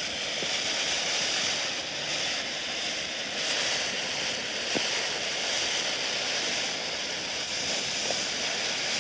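Consumer ground-fountain firework spraying sparks, a steady hiss with no bangs.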